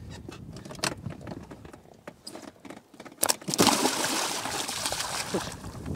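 A big snakehead hitting the water beside the boat with a sharp slap about three seconds in, then heavy splashing at the surface for over two seconds. Before it come a few light knocks and clicks.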